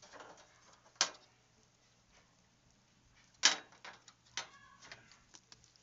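Handling noise: two sharp knocks about two and a half seconds apart, the second the loudest, with lighter clicks and rustling between and after them.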